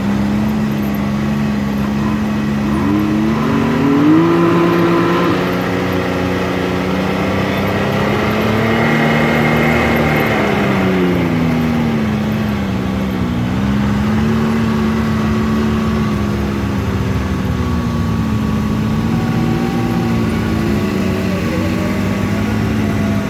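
Side-by-side UTV engine running under load, its revs climbing about three seconds in, swelling and dropping back around the middle, then rising and falling a little near the end.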